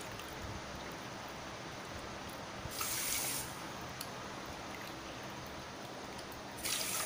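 Water poured from a steel tumbler into a glass bowl, with two brief louder splashing rushes, about three seconds in and again near the end, over a faint steady hiss.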